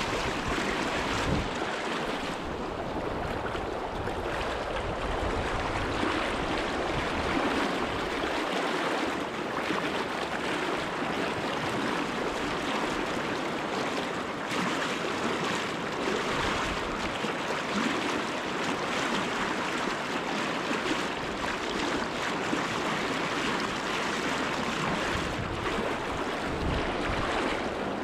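Fast river current rushing steadily, an even noise of flowing water.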